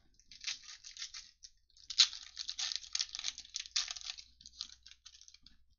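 Foil trading-card pack wrapper crinkling and being torn open by hand: a run of crackly rustles, loudest about two seconds in.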